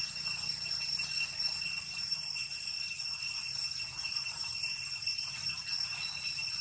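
Steady, high-pitched insect drone of cicadas, one constant shrill tone with overtones that holds throughout without a break.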